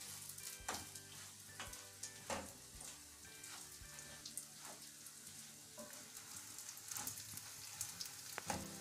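Raw rice sizzling in hot oil in an aluminium pot, being toasted until it starts to turn golden. A wooden spoon stirs it, with a string of scraping strokes against the pot.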